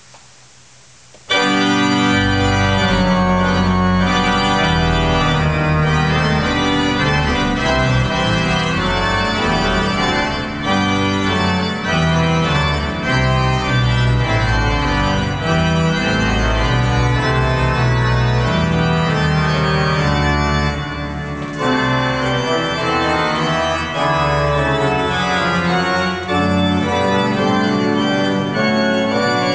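Freshly restored 1911 Agati-Tronci pipe organ playing loud, full sustained chords, coming in suddenly about a second in, with a brief lull about two thirds of the way through.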